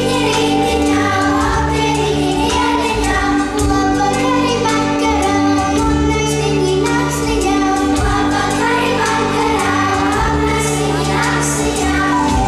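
Latvian folk dance music with a choir singing over a steady held note and a repeating bass line.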